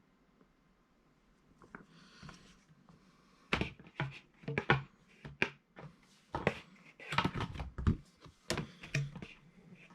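Comic books being handled and shuffled by hand. After a quiet start there is a quick run of sharp taps, clicks and rustles as the issues are picked up and laid down.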